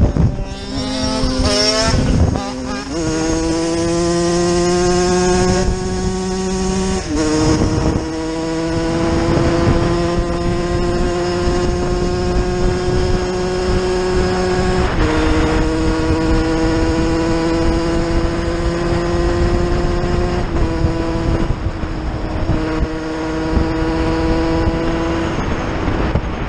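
Motorcycle engine running under load, its pitch holding or climbing slowly and then stepping to a new level several times as the gears change.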